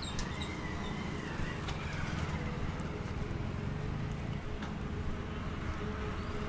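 Outdoor street background: a steady low rumble with a few light footsteps.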